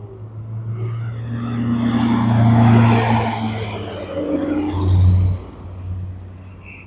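Road vehicles passing close by over a steady low engine hum. The sound swells to a peak about three seconds in, peaks again briefly around five seconds, then drops off sharply.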